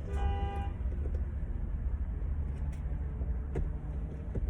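A short pitched beep, about half a second long, just after the start, over a steady low rumble, with a few faint clicks later on.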